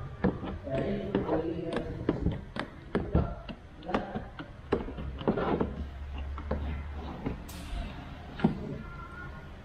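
Scattered light taps and clicks from hand work fitting window film to a car's rear glass, with a short hiss about three-quarters of the way through.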